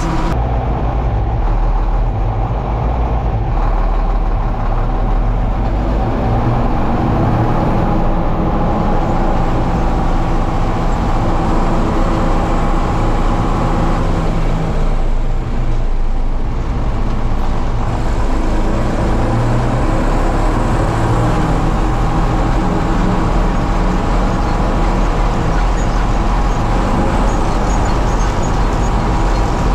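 Motor vehicle engine running steadily, with a brief change in tone about halfway through.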